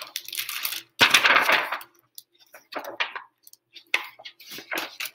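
Hardcover picture book being opened and its pages turned by hand: a longer rustle about a second in, then several short flicks and rustles of paper near the end.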